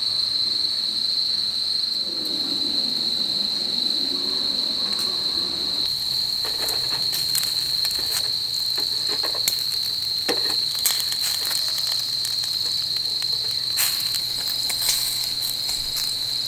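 A chorus of night insects trilling steadily on one high pitch. From about six seconds in, scattered light clicks and taps come from metal tongs turning lamb chops on a wire grill grate over charcoal.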